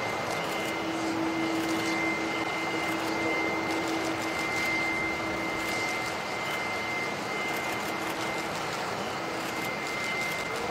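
Boeing 747-400 jumbo jet on final approach, its four jet engines running with a steady rushing noise, a high whine and a lower tone held through it.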